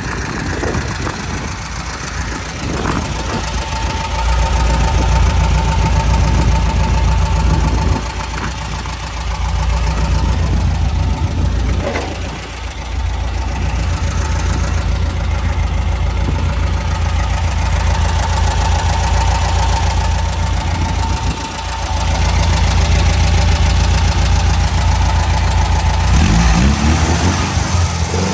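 Air-cooled Volkswagen Transporter flat-four engine idling steadily, with a steady whine over the low drone. It grows louder and softer a few times.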